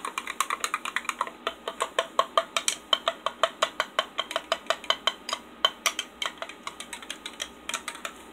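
A spoon stirring in a drinking glass, clinking rapidly and evenly against the glass, about six light ringing clinks a second, as lemon and lime drink powder is dissolved in water.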